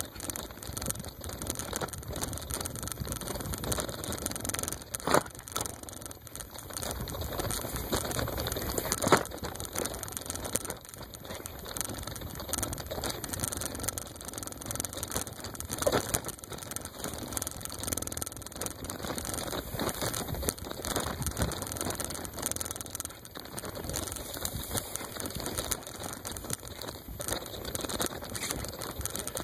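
Bicycle rattling and bumping over a rough, grassy dirt trail, its tyres brushing through the grass, with a constant patter of small knocks and a few louder knocks along the way.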